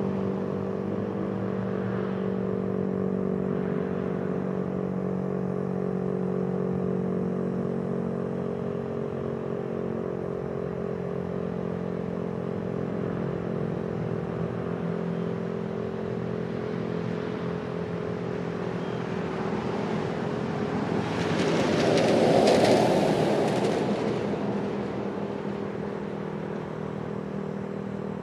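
Federal Signal STH-10 fire siren holding a steady pitch during its test, a droning chord of several close tones that swells and fades slowly. About three quarters of the way through, a vehicle passes close by, rising and falling in loudness over a few seconds.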